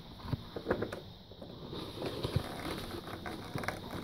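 Scattered small clicks and knocks as a skateboard wheel is fitted by hand onto the truck's metal axle.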